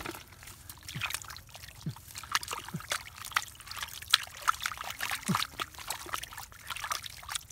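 Liquid mud squelching and splashing as a hand and a basket scoop through it, with many small wet splats and a few low gloops.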